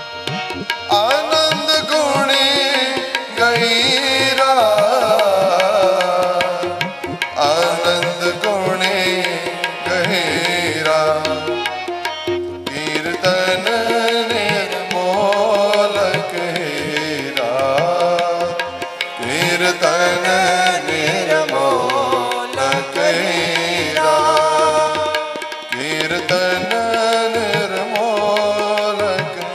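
Sikh kirtan: men's voices singing a hymn with bending melodic lines over the held reed chords of two harmoniums, with tabla playing a steady rhythm underneath.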